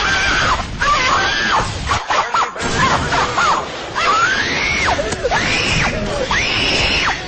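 High-pitched cries, repeated several times, each rising and then falling in pitch, over a loud noisy background, from a meme sound clip.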